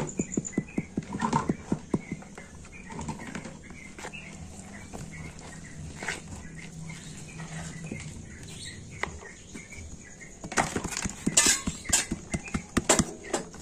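Corn fritter batter being mixed as flour is added: a utensil knocks and scrapes rapidly against the bowl in two spells, at the start and again near the end, with small birds chirping faintly in the quieter middle.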